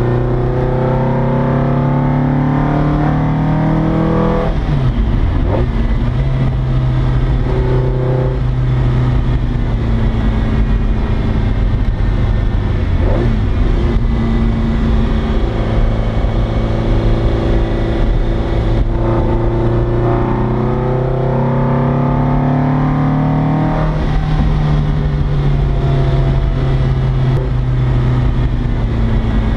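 Porsche four-cam racing engine pulling hard. Its pitch climbs and then drops sharply at an upshift about four seconds in, runs steadier through the middle, then climbs again to a second shift a few seconds before the end.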